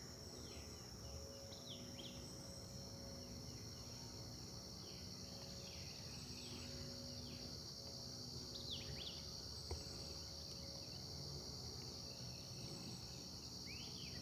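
Steady high-pitched insect chorus, with songbirds giving repeated short downward-sliding calls over it.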